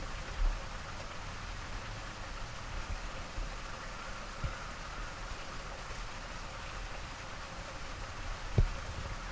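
Steady outdoor background hiss with a few soft low bumps, near the start, midway and near the end.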